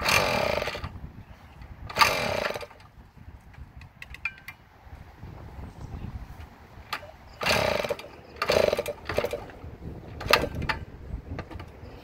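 The two-stroke single-cylinder engine of a 1977 Yamaha GT80, kicked over, fires and revs in about five short bursts of under a second each, dying between them. The engine wants to run but won't keep going, which the owner puts down to a carburetor that needs cleaning and a poorly grounded ignition coil.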